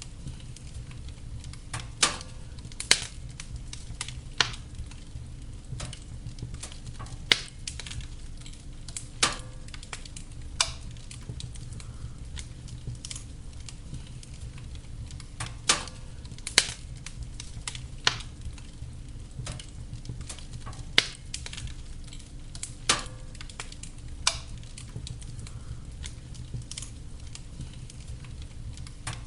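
Wood fire burning in a fireplace, with a steady low rumble and irregular sharp crackles and pops every second or two.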